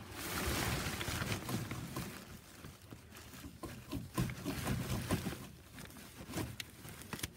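A burst of rustling about a second long, then scattered light knocks and clicks, the sound of things being moved and handled by hand.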